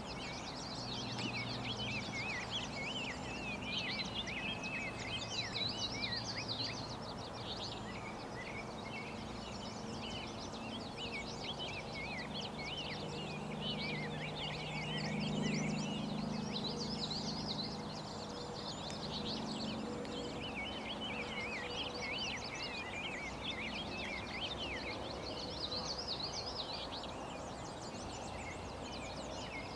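Many songbirds chirping and singing at once, a steady chorus of quick, high calls over outdoor background noise, with a faint low hum that swells around the middle.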